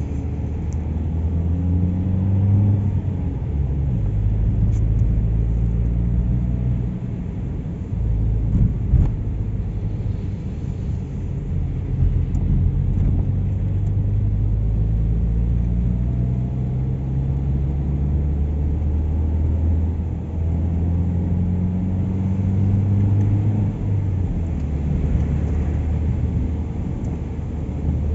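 Car engine and road rumble heard from inside the moving car, the engine note rising a few times as it speeds up and easing off between.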